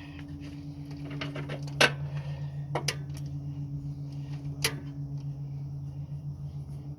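Ratchet wrench clicking as a bolt is tightened on the alternator bracket to tension a new drive belt, with a few sharper metal knocks, over a steady low hum.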